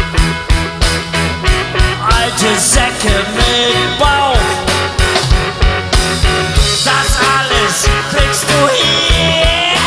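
Rock band playing a song: electric guitars and bass over a steady drum beat.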